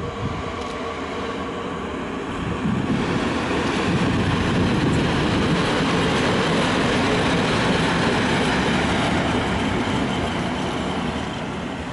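ET22 electric locomotive running light past the platform, its wheels running over the rails. The noise grows louder about three seconds in, stays loud as it passes close by, and eases off near the end.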